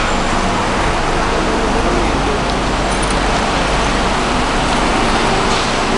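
Steady rushing background noise on a rail station platform, even throughout with no distinct events.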